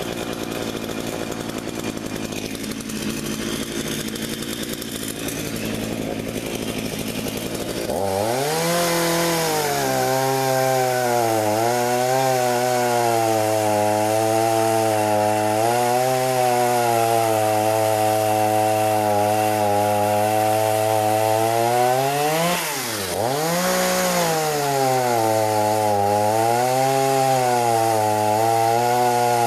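Earthquake CS3814 two-stroke chainsaw cutting through a log. About eight seconds in, the engine note comes up sharply, then wavers up and down as the chain bogs and frees in the wood. About two-thirds through it drops briefly and revs back up before cutting on.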